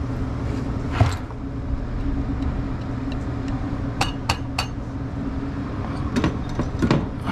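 Steady hum of a walk-in cooler's condensing unit running while its condenser fan motor has failed and is not turning. Sharp metallic clinks from handling the unit: one about a second in, three quick ones around the middle, and two more near the end.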